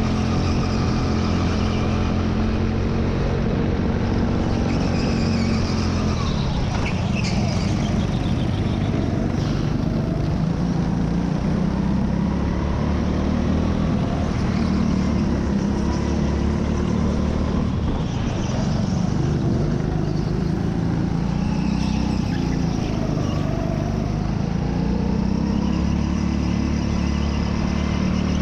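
Onboard sound of a racing kart's engine running hard, its pitch dropping and climbing again several times as the driver lifts for corners and gets back on the throttle.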